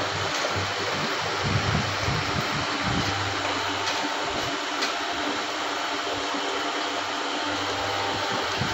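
Motor-driven cold-press oil ghani (chekka ganuga) running: a steady mechanical hum and rush from the drive, with irregular low thumps and grinding as the rotating mortar crushes oilseed.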